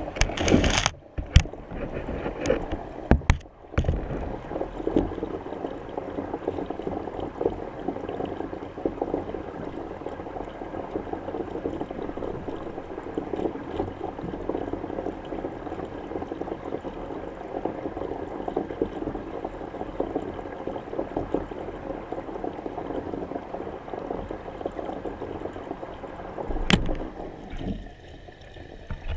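Muffled, steady crackling water noise picked up by a submerged camera, with several sharp knocks in the first few seconds and one more near the end.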